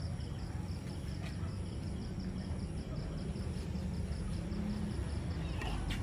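Crickets chirping in a fast, even pulse over a steady low rumble, with a single knock near the end.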